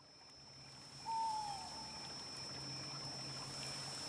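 Night-time ambience fading in: a steady thin high insect trill over a faint hiss, with a single short falling owl call about a second in.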